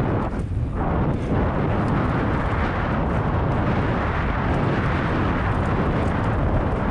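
Wind buffeting the action camera's microphone, with tyre rolling noise, as a mountain bike rides fast down a dirt trail. It is a loud, steady rush with a heavy low rumble.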